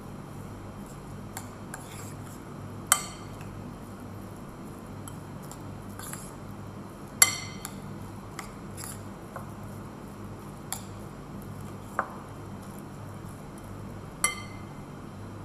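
Metal spoon stirring a shredded cabbage mixture in a glass mixing bowl: soft scraping, with four sharp ringing clinks of metal against glass, the loudest about seven seconds in.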